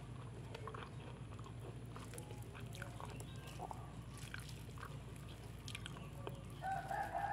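Close-up eating sounds: a person chewing a mouthful of rice with pecel, with small wet mouth clicks and fingers picking at rice on a banana leaf, over a low steady hum. Near the end a held, pitched sound begins.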